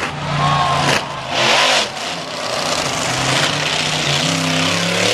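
Monster truck engine running close by, idling and revving up and down, with a louder rev about a second and a half in.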